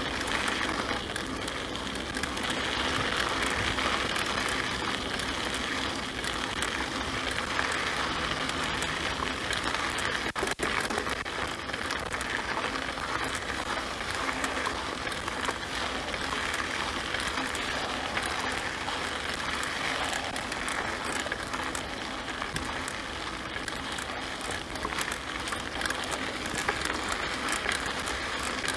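Mountain bike rolling along a dirt track: steady tyre noise on the loose surface with constant small rattles and clicks from the bike.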